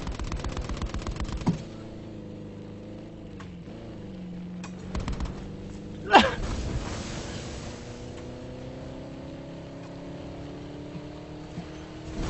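Car engine running, its pitch slowly rising through the second half as it picks up speed, with fast pulsing in the first second and a half. A single loud sharp bang with a quick falling sweep cuts in about six seconds in.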